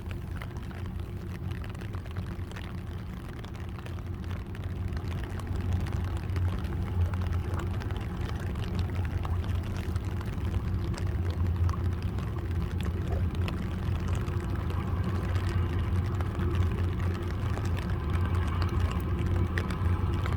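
Towboat pushing a barge on the river, its diesel engines running with a steady low drone that grows louder about five seconds in as it comes closer.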